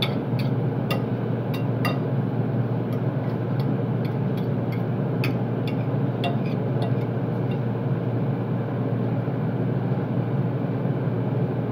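Metal fork clicking and scraping on a ceramic plate, many light clinks through the first half or so and only a few after, over a steady low machine hum.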